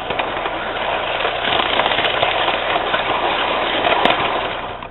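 Electric model train running along its track close by: a steady whir and rumble of motor and wheels that grows louder about a second and a half in and fades near the end.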